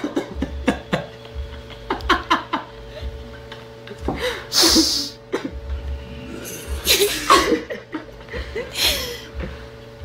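Short breathy laughs and chuckles in scattered bursts, the loudest about halfway through, over a faint steady hum.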